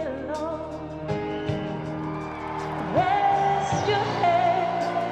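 Live arena recording of a woman singing with a band. About three seconds in she rises into a long held note with vibrato over sustained low accompaniment.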